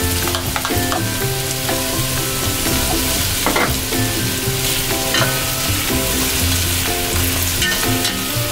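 Diced potatoes, carrots and sliced hotdogs sizzling as they fry in oil in a pot, with a spatula pushing and stirring them and a few light clicks as the hotdog slices tip in.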